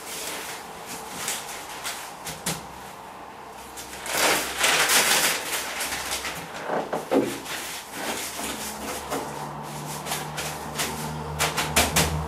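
Scattered knocks and clicks with rustling, including a louder rustle lasting about a second and a half, starting about four seconds in. A steady low hum starts about nine seconds in and keeps going.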